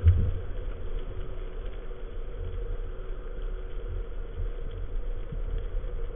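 Underwater ambience picked up through a waterproof camera housing: a muffled low rumble of water moving against the housing, with a thump right at the start, a faint steady hum and light crackling.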